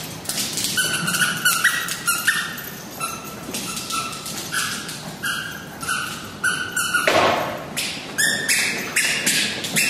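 A terrier with a chew toy in its mouth on a hard floor: a run of short high-pitched squeaks, one or two a second, mixed with sharp clicks and taps, and a louder, fuller sound about seven seconds in.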